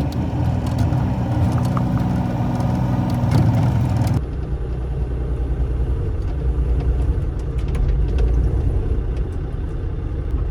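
Bobcat E35 mini excavator's diesel engine running steadily, louder for about the first four seconds and then dropping abruptly to a lower, even note, with a few faint clicks over it.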